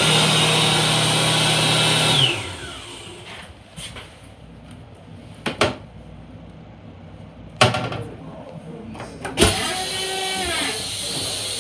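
Train lavatory toilet flushing: a loud rushing whoosh with a steady whine cuts off about two seconds in and then tapers away. A few sharp clunks follow. A second mechanical cycle starts with a knock and a gliding whine near the end.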